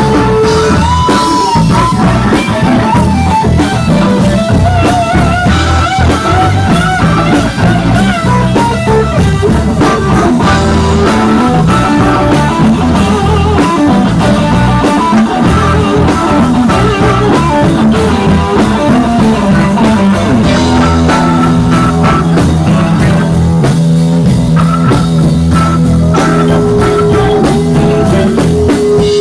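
Live instrumental trio of electric guitar, electric bass and drum kit playing, the guitar taking a wavering lead line over the bass and drums.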